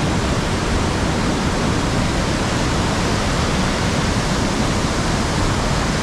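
Mountain river in spate, its swollen, fast water making a loud, steady rush that covers everything else.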